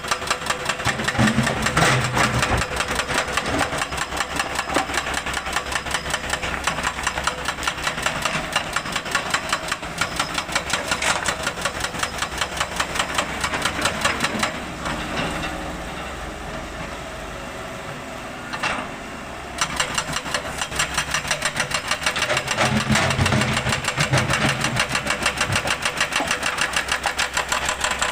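Excavator's diesel engine running with a fast, even knocking beat. About halfway through it drops to a quieter, lower-revving run for about five seconds, then comes back up.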